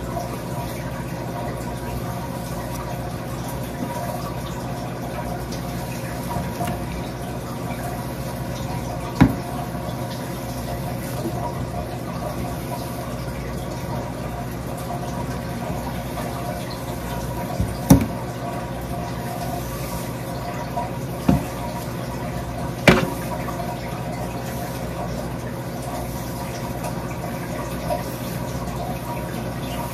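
Steady rush of water running into a sink, with a few sharp clicks scattered through it.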